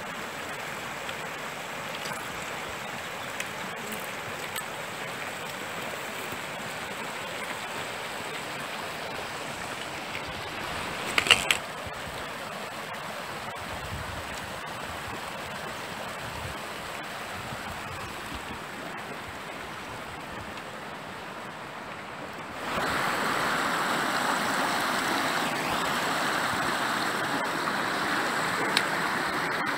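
Mountain stream running over rocks, a steady rush of water that grows louder about three-quarters of the way in. A short cluster of sharp clicks, a little past a third of the way in, is the loudest moment.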